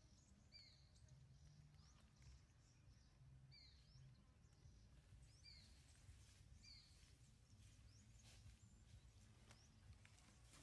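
Faint, short high-pitched chirping calls, each dropping quickly in pitch, repeated at uneven intervals mostly in the first seven seconds, over a low background rumble.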